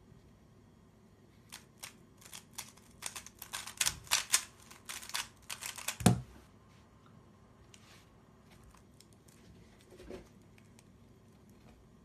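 A plastic 3x3 speed cube's layers being turned in fast clattering bursts of clicks during a speed solve, ending in one loud thud about six seconds in as the solved cube is set down. A few faint ticks and a small knock follow.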